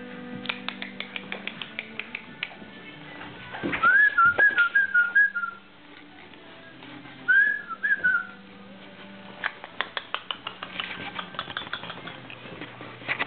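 A person whistling to a boerboel puppy in two bursts of short warbling notes, the first about four seconds in and a shorter one a few seconds later. Between them come runs of rapid light clicks, the puppy's claws on a tiled floor.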